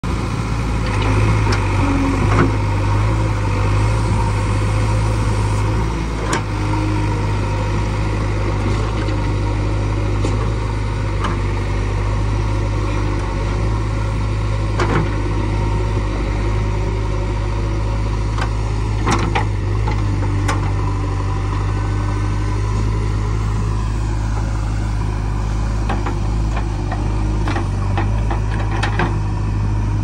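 JCB 3DX backhoe loader's diesel engine running steadily under load while the hydraulic backhoe arm digs and pulls, with a few sharp knocks from the bucket and arm, more of them near the end.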